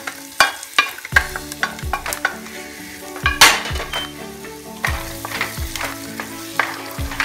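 Wooden spatula scraping and knocking against a metal pan and pressure cooker as ghee-fried dry fruits are scraped into thick carrot halwa and stirred in, with a light sizzle of hot ghee. The loudest knock comes about halfway through.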